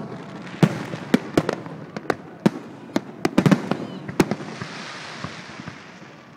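Aerial fireworks bursting: a string of sharp bangs, several in quick succession about three and a half seconds in, then dying away into a faint hiss near the end.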